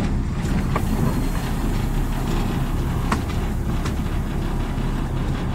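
Diesel locomotive BB 71008 running along the line, heard from on board: a steady engine drone with rail running noise and a few faint clicks.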